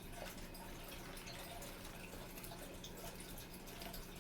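Faint steady trickle of running water with a low hum and a few soft clicks.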